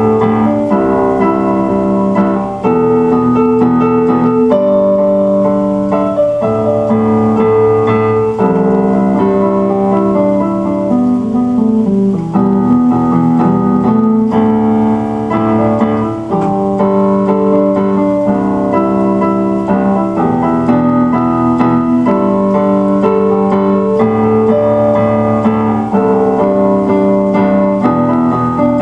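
Background music: electric piano or keyboard playing chords with a steady rhythm.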